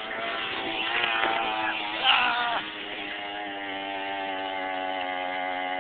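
Mini bike's small single-cylinder engine running at high revs while ridden, its pitch wavering and climbing a little in the first two seconds, then holding a steady drone.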